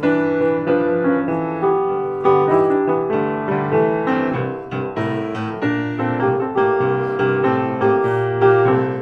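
Piano music: a melody over chords, with notes struck one after another.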